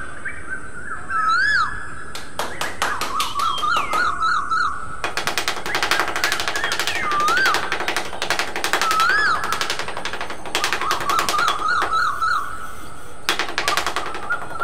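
A small metal trowel scraping over sand in quick strokes, heard as runs of rapid scratchy clicks in several spells. Over it, birds call with repeated rising-and-falling whistles and short quick trills.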